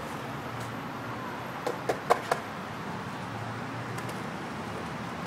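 Skateboard clacking on concrete: four sharp knocks in quick succession about two seconds in, over a steady background rumble.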